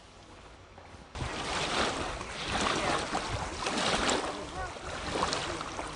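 Water splashing around kayaks with wind buffeting the microphone, cutting in suddenly about a second in.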